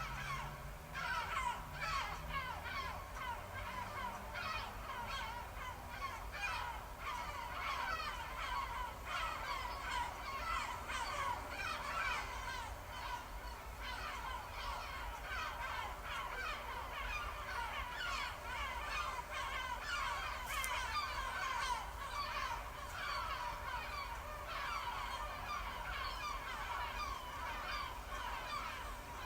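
Recorded seagull soundscape played through an Amazon Echo smart speaker: many gulls calling over one another, a steady chorus of short cries that fall in pitch, at different pitches.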